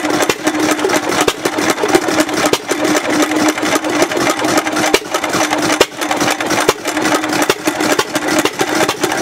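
Empire hit-and-miss engine running fast, at about 400 RPM, well above the slow speed it is built for. A quick, even run of firing strokes and clatter.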